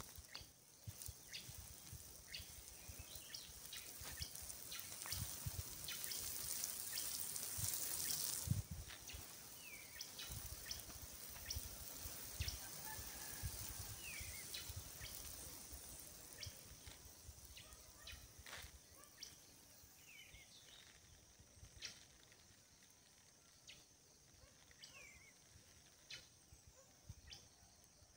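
Water spraying and pattering onto a soil seedbed, a faint hiss with drips that builds over the first eight seconds, drops off sharply, then fades out by about two-thirds through. Short falling chirps come and go in the background.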